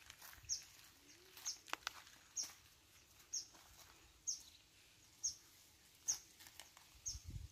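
A bird repeating one short, high, falling note about once a second, with a few faint rustles or steps on dry leaves about two seconds in.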